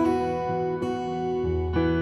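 Background music: an instrumental passage of plucked guitar notes, a new note every half second or so.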